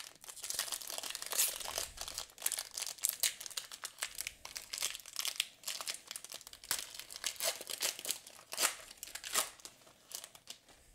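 Crinkling plastic wrapper of a Magic: The Gathering collector booster pack being torn open and handled, with many sharp crackles.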